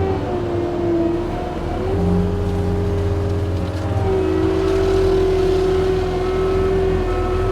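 John Deere 335P skid steer running a forestry mulching head: a steady machine whine over the diesel engine's drone. The pitch sags briefly about a second in and again around four seconds in, the mulcher slowing under load and spooling back up. A faint beeping repeats in the second half.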